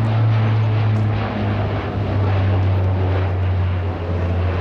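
Lockheed Martin C-130J Hercules passing overhead, its four turboprop engines and six-bladed propellers giving a loud, low propeller drone whose pitch slides lower as it goes by.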